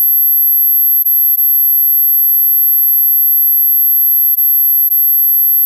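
A single steady, very high-pitched electronic pure tone of the kind played as a 'silent' dog whistle, cutting out for an instant a few times.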